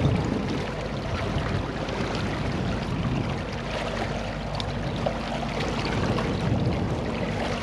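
Steady rushing water around a boat drifting in a tidal current, with a faint low hum underneath and a few light clicks of the net being handled.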